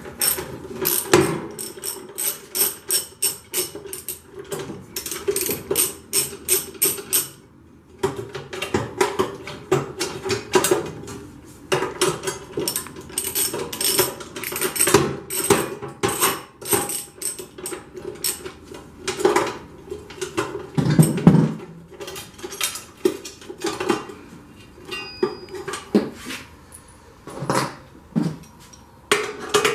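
Socket ratchet wrench clicking in runs of quick strokes as it loosens the nuts of a truck battery hold-down bracket, with metal clinks from the bracket and steel battery box.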